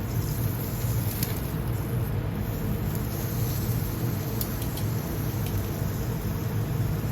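Hamburger patties grilling on a gas grill with charcoal: steady sizzling hiss with a few faint pops, over a constant low hum.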